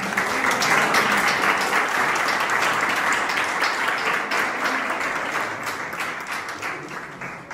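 Audience applauding: the clapping starts suddenly and slowly dies away over several seconds.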